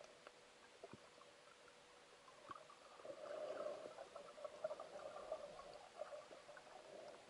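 Faint underwater clicks and crackling, muffled by a waterproof camera housing, swelling a little in the middle, over a faint steady hum.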